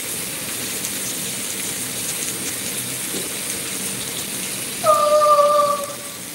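Steaks sizzling on a grill, a steady hiss throughout. Near the end a short, clear tone sounds for about a second, falling slightly in pitch.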